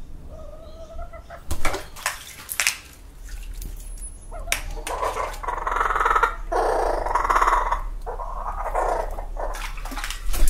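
Laughing kookaburra clucking: low, rough, repeated calls that get loud through the middle of the stretch, with a few sharp knocks early on. Water splashes in a birdbath near the end, with a sharp hit just before it stops.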